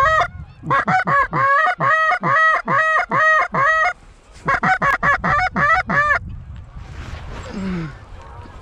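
Canada goose honks in quick, clipped runs of about four a second, two bursts with a short break between them, then one falling call near the end.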